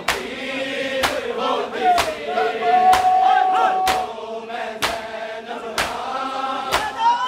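Men's voices chanting a Punjabi noha, a Shia mourning lament, in unison, with one long held note near the middle. Sharp chest-beating (matam) slaps from the mourners keep a steady beat of a little more than one a second.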